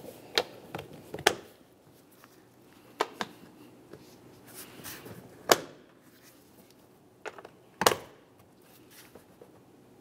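Hard plastic air filter housing being worked and pressed into place by hand: irregular sharp clacks and clicks spaced out over several seconds as the housing's tabs are seated.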